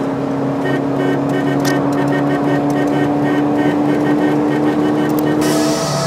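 Tofaş Doğan SL heard from inside the cabin, its engine running at a steady cruising speed over road noise. A hiss comes in near the end.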